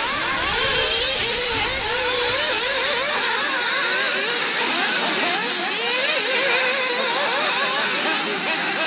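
Several nitro-powered radio-control off-road cars racing, their small two-stroke glow engines whining high and overlapping, each pitch rising and falling over and over as the cars accelerate and back off.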